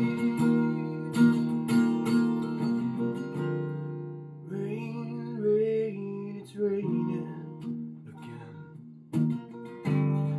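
Acoustic guitar strummed in steady chords, with a man's singing voice coming in over it about halfway through.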